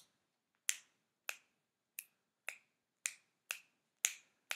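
Finger snaps made by one hand and then the other, as sharp separate clicks about two a second, coming slightly quicker towards the end.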